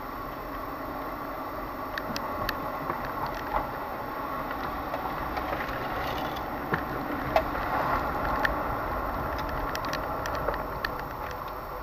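Steady car running noise heard from inside the cabin while driving slowly, engine and tyres, with scattered small clicks and rattles.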